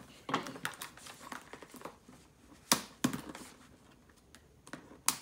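Hands working at a plastic toy-ball package: rustling and tapping with a few sharp clicks. The loudest click comes about two and a half seconds in, and another comes near the end.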